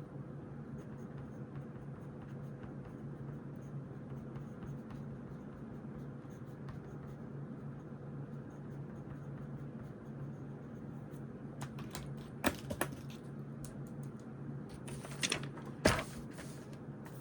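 Desk study sounds: faint scratching of writing on notebook paper over a steady low hum, then a few sharp clicks and a short rustle near the end, the loudest click about a second before the end.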